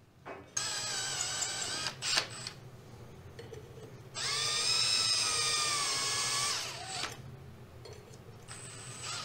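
Makita cordless drill boring through the holes of a template plate into the fiberglass bulkhead, running in three bursts. The longest burst, in the middle, lasts over two seconds and its whine dips slightly in pitch as the bit loads up.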